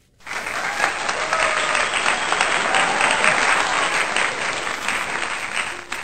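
A crowd applauding with a few cheers, starting suddenly and cutting off about six seconds later. It is an added sound effect.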